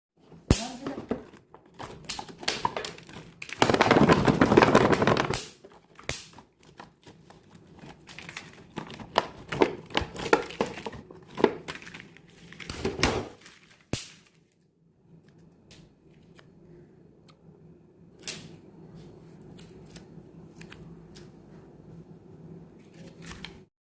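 Plastic packaging being handled and unwrapped: crinkling, tearing and sharp clicks and taps, with a loud stretch of continuous crinkling about four seconds in. In the second half it goes quieter, with only occasional taps over a faint steady hum.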